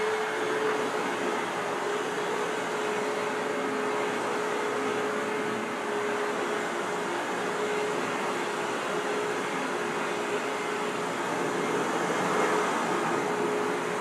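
Hoover WindTunnel vacuum cleaner running steadily: a continuous motor whine over a rushing hiss.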